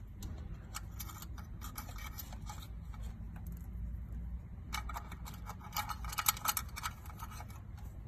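Small clicks and scratching of hands working a replacement charging port into an electric scooter's housing, thickest about five to seven seconds in, over a low steady hum.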